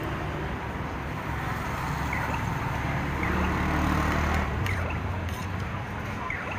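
Steady low engine-like rumble of nearby traffic, with a few short high chirps a few times.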